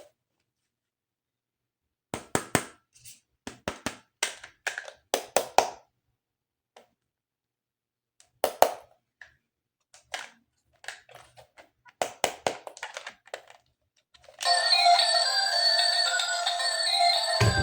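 Irregular clicks and taps of plastic toy parts being handled, in clusters with short silences between. Near the end, music with held notes starts and carries on.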